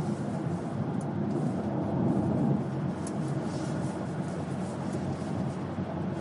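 Steady engine and road rumble heard inside a moving car's cabin.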